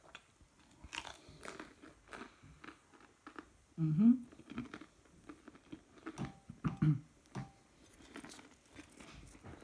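A person chewing and biting homemade pizza, with many small crunching clicks. Two short low voiced sounds from the eater come about four and seven seconds in, the first the loudest.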